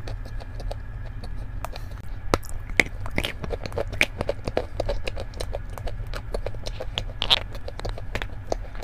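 Crumbly chalk being crushed: quick, irregular crunching and crackling, with a few louder snaps, over a steady low hum.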